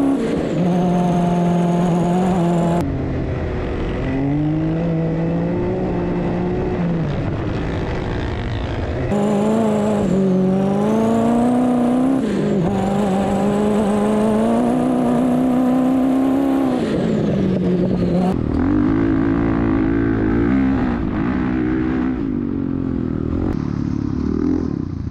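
Dirt bike engine under hard throttle across sand, its pitch climbing and dropping again and again as it revs and shifts, with wind rush. The engine note jumps abruptly a few times.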